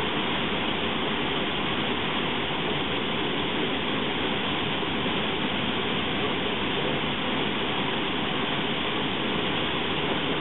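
Steady rush of fast river water around a waterfall, an even, unbroken roar of noise at constant loudness.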